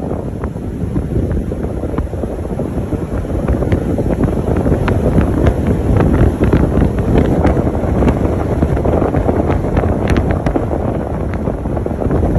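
Wind buffeting the microphone of a camera held out of a moving car, a loud low rumble that grows louder over the first few seconds, with scattered light crackles.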